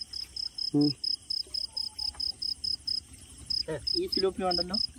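A cricket chirping steadily, a high chirp repeated about four times a second.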